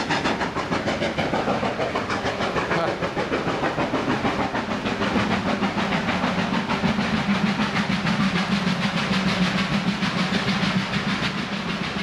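Steam locomotive hauling passenger coaches uphill over a steel girder bridge, its exhaust beating in a quick, even rhythm over a steady hiss.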